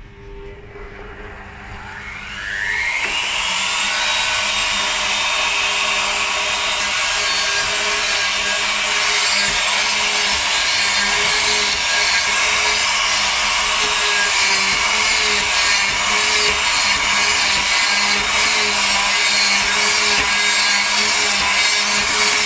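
Router motor on a woodworking tenoning machine spinning up with a rising whine over the first few seconds. It then runs steady at high speed while its bit cuts into a wooden board.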